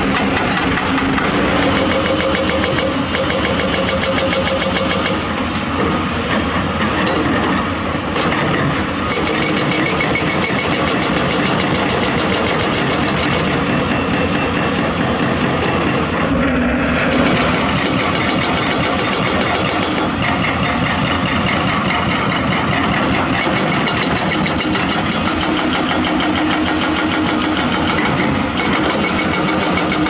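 Diesel engines of hydraulic crawler excavators running steadily, with a fast, even pulsing rattle throughout.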